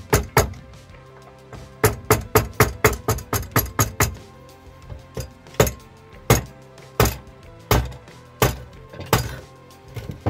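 Hammer blows on metal, knocking apart the two halves of a Jawa 20 moped engine's crankcase. There is a quick run of about four sharp blows a second, then single blows under a second apart. The crankshaft bearing is still holding the halves together.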